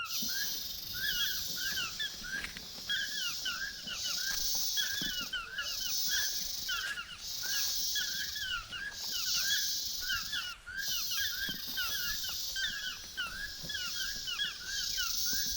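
Rainforest chorus: many short rising chirps repeat several times a second, over a high insect buzz that switches on and off about every second.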